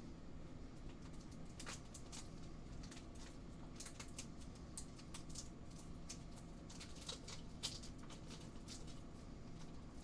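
Faint handling noises of trading cards and plastic card sleeves: scattered light clicks and rustles over a low steady hum.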